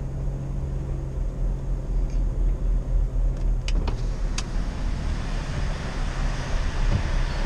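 Truck's diesel engine running, heard from inside the cab as a steady low hum. A few sharp clicks come about four seconds in, after which the engine note changes and a rushing noise grows.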